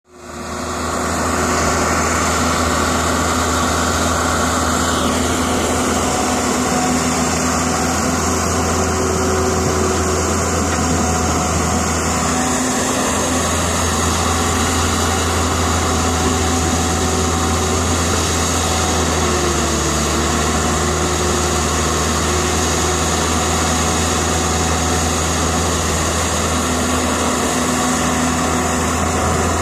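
Caterpillar E120B excavator's diesel engine running steadily as it digs and loads soil, fading in over the first second or two, with small shifts in pitch as the machine works.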